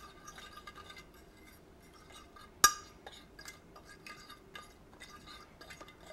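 A metal fork stirring flour and salt in a glass Pyrex dish: faint scrapes and light ticks of metal on glass, with one sharp clink about two and a half seconds in.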